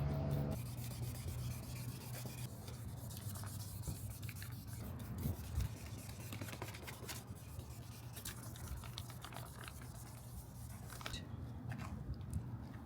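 Sanding a plastic car headlight lens: continual scratchy rubbing over a steady low hum.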